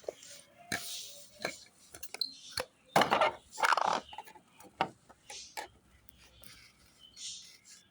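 Things being handled during an unboxing: scattered light clicks and knocks of small hard objects and packaging, with two louder rustles about three and four seconds in.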